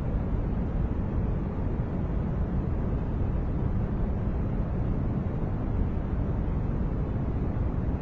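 Steady noise track played as white noise: an even, unbroken rushing hiss, deep and rumbly, strongest in the low end and fading off toward the top, with no change in level.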